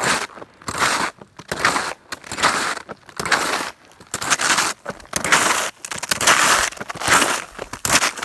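Footsteps crunching through snow, about one step a second, each step a short crunch. These are boot steps before snowshoes go on, sinking a little into the snow.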